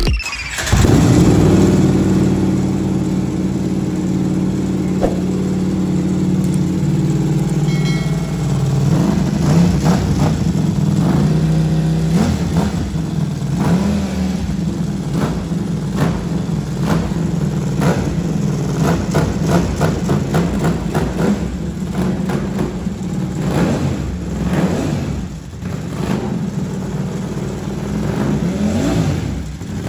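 Ducati Panigale V4 SP2's 1103 cc V4 engine, breathing through an Arrow aftermarket exhaust with the catalytic converter removed, idling. From about nine seconds in, the throttle is blipped again and again, the revs rising and dropping back each time.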